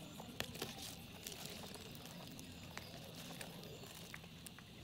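Faint light ticks and scrapes of a knife cutting a grilled steak on a paper plate, over quiet outdoor background.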